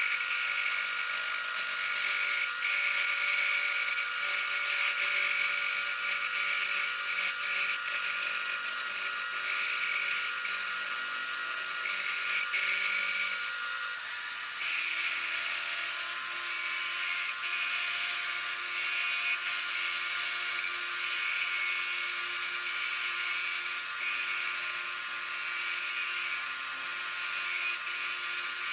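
A small woodworking power tool running steadily, with a high whine and hiss; it dips briefly about 14 seconds in and carries on at a slightly different pitch.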